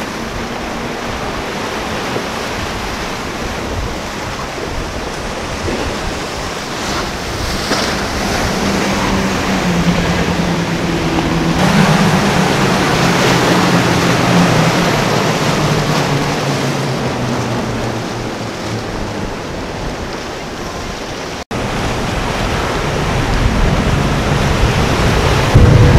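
Outboard engines of a center-console sport-fishing boat running past at speed through rough water, their drone sinking in pitch as the boat goes by. Rushing spray, surf and wind on the microphone.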